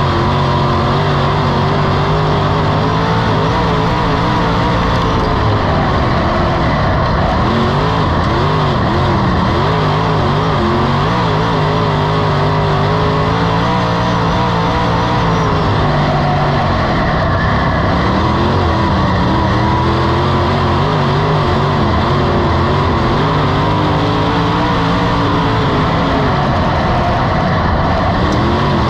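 Dirt modified race car's V8 engine at racing speed, heard from inside the cockpit. Its revs rise and fall every few seconds as the car goes through the turns and back onto the throttle.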